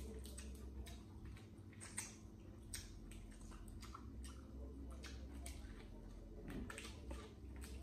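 Close eating sounds: boiled crawfish shells cracked and peeled by hand, along with chewing, heard as scattered small clicks and crackles.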